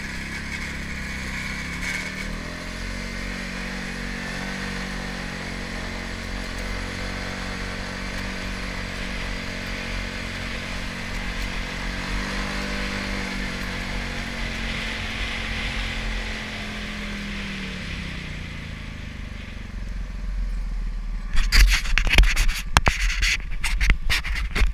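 TGB Blade 550SE quad's single-cylinder four-stroke engine running as it is ridden, its pitch rising and falling with the throttle, over a steady hiss of wind and tyres on gravel. Near the end the engine drops away and loud, irregular crackling and knocking hits the microphone.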